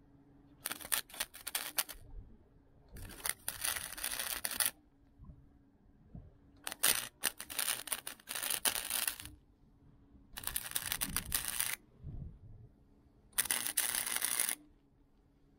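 Flux-core wire welder laying spot welds on thin sheet-metal body panel: five separate bursts of crackling, spattering arc, each a second or two long, with short pauses between welds.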